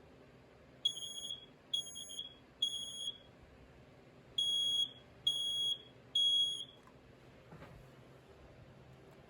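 Smoke alarm's piezo horn sounding in the temporal-three evacuation pattern: two rounds of three shrill beeps with a pause between them. A faint knock follows near the end.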